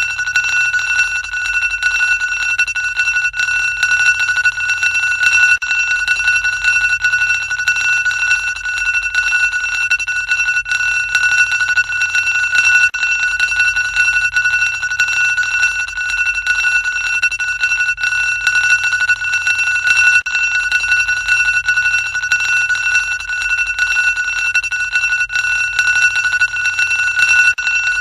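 Loud, high-pitched electric alarm ringing, one steady shrill tone with a fast flutter, never letting up.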